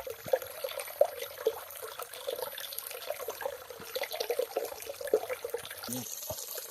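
Water flowing in a small stream, gurgling and trickling steadily with many small irregular splashes.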